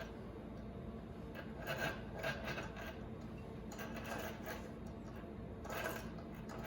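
Rotary telephone dial being turned and spinning back, a faint rasping whir in a few short bursts.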